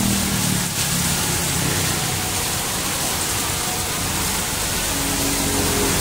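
Heavy rain falling steadily on a city street, an even hiss, with vehicles driving past on the wet road; an engine's hum rises near the end.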